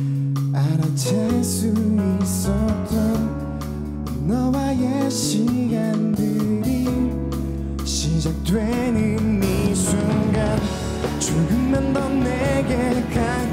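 A live indie pop song: a male singer sings a melody over a band of electric guitars, bass guitar and drum kit.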